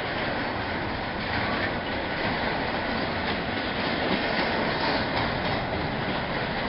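Double-stack container train of well cars rolling past at close range: a steady noise of steel wheels on rails, with clicks as the wheels pass over rail joints.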